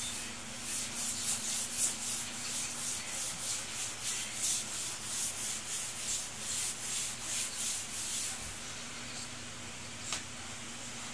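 A floor being scrubbed by hand with a rag on a wet tiled floor: quick back-and-forth rubbing strokes, about three a second, that stop near the end. A single click follows, over a faint steady hum.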